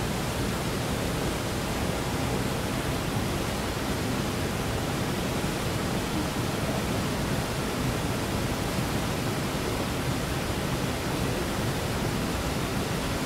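Steady rush of creek water, an even, unbroken noise with nothing else standing out.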